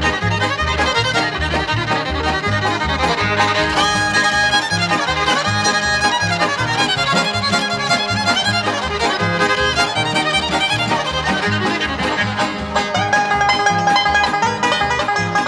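Background music: an upbeat bluegrass-style instrumental with fiddle and banjo over a steady bass beat.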